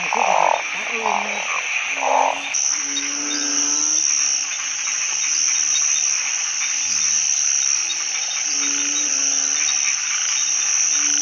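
A chorus of calling frogs: short, low-pitched calls repeat every second or two, with a quicker run of higher calls in the first couple of seconds. A steady high-pitched insect drone runs underneath.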